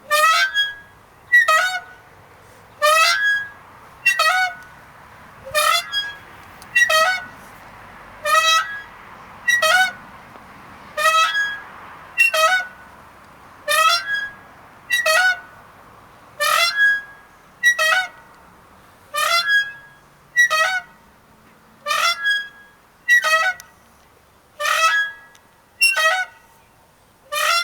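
A swing squeaking over and over as it swings back and forth: a short, high creaking squeal roughly once a second.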